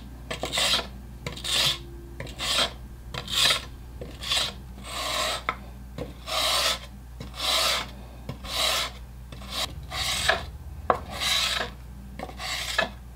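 Steel chisel bevel being rubbed back and forth on sandpaper over a plate-glass plate, a rasping scrape with each stroke at about one stroke a second. The bevel of a damaged chisel is being reground, first on 80 grit, then cleaned up on 120 and refined on 320 grit.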